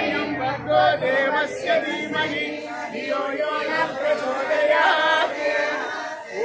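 A group of voices singing a Hindu devotional bhajan together.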